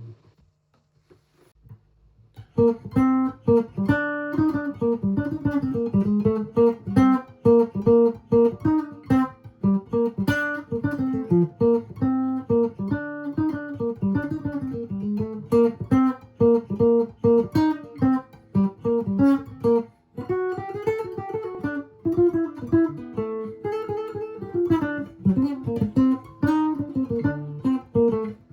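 1941 Gibson ES-300 archtop electric guitar played through a cheap P90 pickup, with a tone that is a little honky. After a short pause a tune starts about two and a half seconds in, a mix of picked single-note lines and chords, with a brief break about twenty seconds in.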